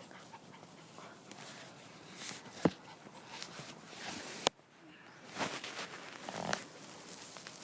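Two dogs play-wrestling: scattered short scuffling noises and dog sounds, with a thump about a third of the way in and a sharp click a little past halfway.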